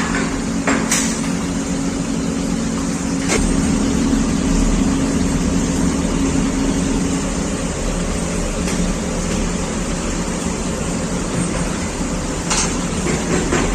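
Brass melting furnace running: a loud, steady mechanical hum over a continuous rushing noise, with a few sharp knocks or clangs here and there.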